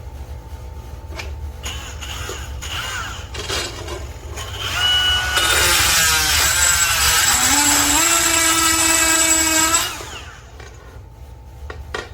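A DeWalt 20V cordless grinder runs for about five seconds in the middle, with a whine that shifts in pitch over a harsh grinding hiss, then cuts off suddenly. Before it runs there are only faint handling clicks.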